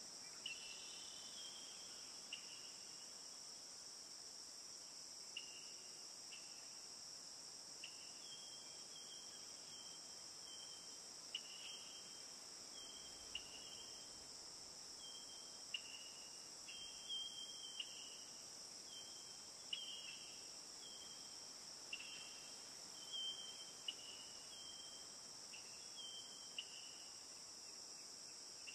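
Faint insects, typical of crickets, chirping: short, thin high-pitched chirps every second or two over a steady high hiss.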